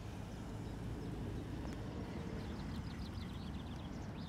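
Outdoor ambience: a low steady rumble with a small bird trilling briefly about two seconds in.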